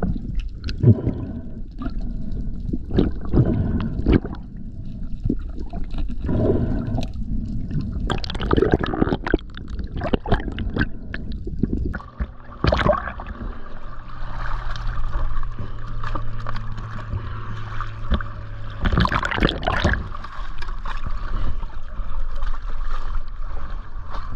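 Water splashing and gurgling around a camera at the water's surface as a freediver swims. About halfway through, a steady low hum joins in under the water noise.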